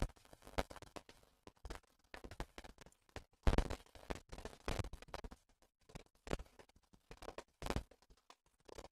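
Faint, scattered clicks and taps of a computer mouse and keyboard, a handful of separate strokes with the sharpest about three and a half seconds in.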